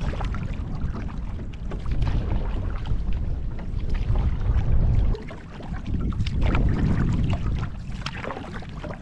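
Wind buffeting the microphone over the rushing water of river rapids: a steady low rumble that briefly eases about five seconds in.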